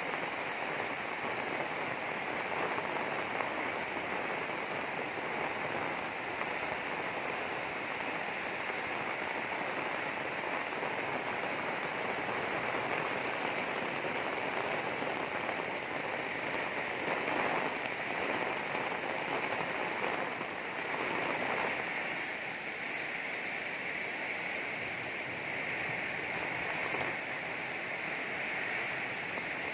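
Heavy rain pouring steadily in strong wind during a rainstorm, swelling briefly louder a couple of times about two-thirds of the way through.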